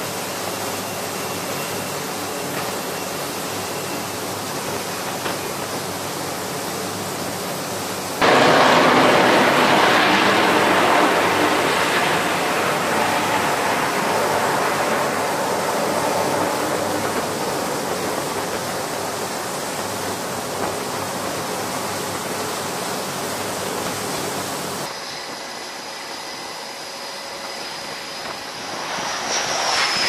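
F/A-18 Super Hornet jet engines on an aircraft carrier's flight deck. A steady engine hiss turns much louder all at once about eight seconds in and slowly eases off. Near the end a jet coming in to land grows louder.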